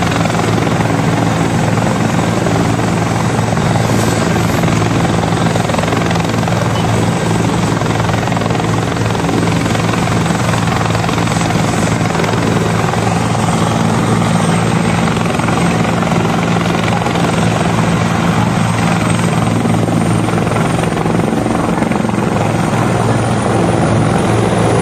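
Helicopter running on the ground, with a steady rotor thrum over the engine's rush and a high turbine whine. Near the end the whine rises as the helicopter powers up to lift off, kicking up dust.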